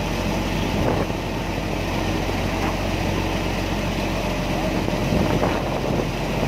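Vehicle ferry's engine running steadily under way, a low even drone.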